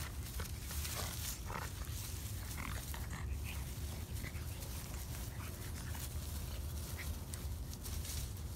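Two Boston terrier puppies play-fighting, making short growling vocal noises now and then, over a steady low rumble.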